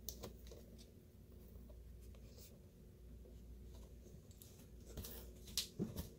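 Faint rustling and light tapping of a cardboard-and-plastic action-figure box being turned over in the hands, with a few sharper clicks near the end.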